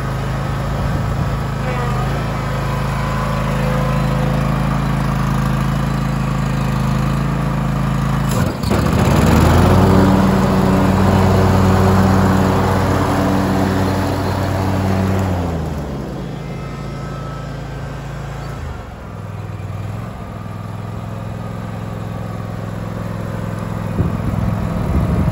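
John Deere X300 garden tractor's engine running steadily as the tractor drives on grass. About eight seconds in the engine speeds up and gets louder, with a rushing whir over it, then drops back to a lower, steady run about fifteen seconds in.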